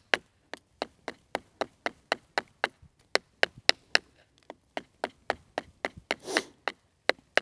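Small Condor Mini Bushlore bushcraft knife chopping into the base of an upright wooden stake in quick, light strokes. Sharp knocks of the blade biting into the wood come about four a second, with a brief pause about halfway through.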